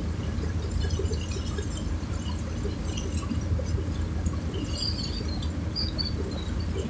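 River water lapping and splashing close to the microphone over a steady low rumble.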